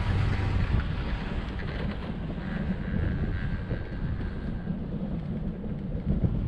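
Wind buffeting the microphone: a steady rushing rumble, heaviest in the low end, with a faint thin whine in the middle of it.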